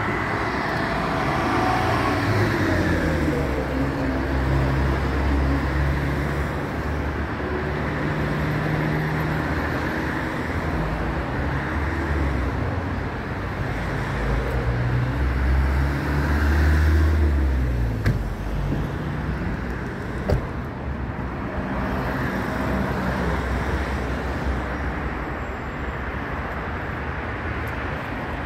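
Street traffic: car engines passing along the road, their pitch rising and falling as they speed up and slow down over a steady hiss of tyres, loudest a little past the middle. A single sharp click about two-thirds of the way through.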